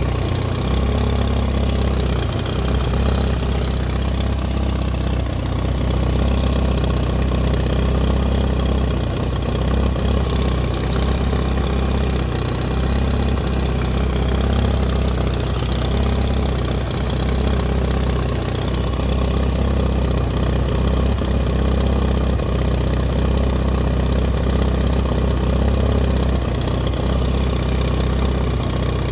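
Car engine idling steadily, a low even hum that holds at one speed without revving.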